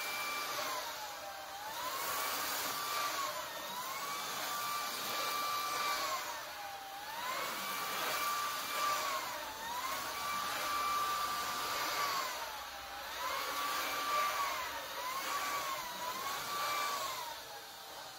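Shark Cordless Pet Plus stick vacuum running. Its motor whine dips in pitch and comes back up every two to three seconds over a steady rush of air.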